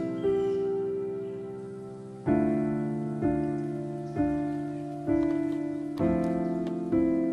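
Slow piano music: a held chord, then a new chord struck about once a second, each fading before the next.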